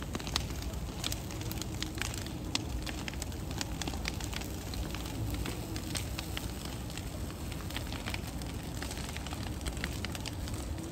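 Sacred bonfire of burning hitakigushi prayer sticks and straw: a steady rush of flame with frequent sharp crackles and pops.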